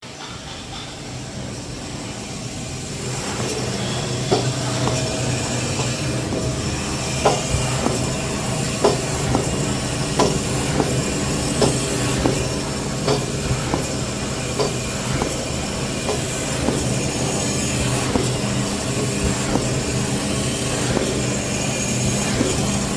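Semi-automatic band saw toilet paper roll cutting machine running with a steady mechanical hum that builds over the first few seconds. Sharp knocks come about every second and a half, in time with its cutting cycle.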